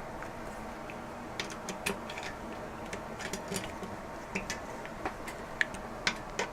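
Metal Allen key clicking and tapping against the dropout bolts of a BMX frame as they are tightened down, in a dozen or so irregular sharp ticks starting about a second and a half in.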